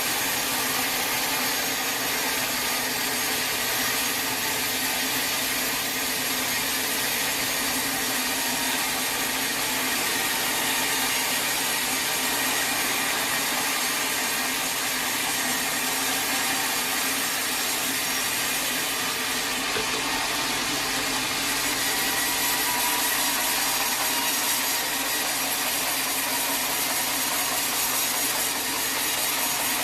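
Sawmill saw cutting steadily through wood in one continuous, unbroken cut.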